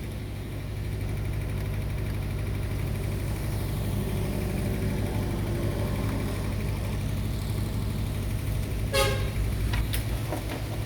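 A steady low hum, with a short horn-like toot about nine seconds in and a couple of brief clicks just after.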